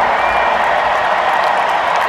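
Large stadium crowd applauding and cheering, a dense steady wash of clapping and voices. The last low notes of the music die away about half a second in.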